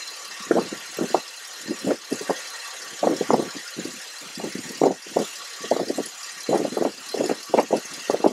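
Chevy Venture engine idling hot with its electric radiator cooling fans running, switched on by the coolant reaching about 226 °F. Under a steady hiss the sound comes in uneven pulses, a few a second.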